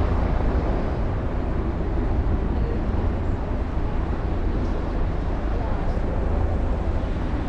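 Steady low rumbling outdoor noise: the roar of an erupting lava fountain mixed with wind on the microphone, even throughout with no distinct bangs.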